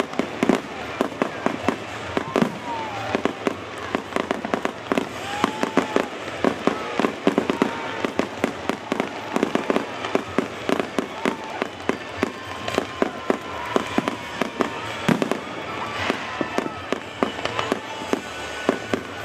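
Aerial fireworks shells bursting in rapid succession, many loud bangs a second with crackling in between.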